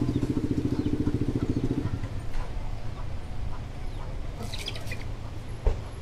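A vehicle engine running close by, a rapid even pulsing that is loudest for the first two seconds and then fades away. A few short bird chirps come about four and a half seconds in, and there is a single sharp knock near the end.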